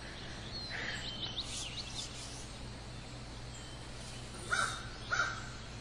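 Outdoor nature ambience: quick high bird chirps about a second and a half in over a faint steady low hum, with two short louder sounds near the end.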